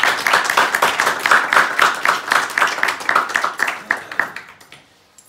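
Audience applause, many hands clapping together, fading out near the end.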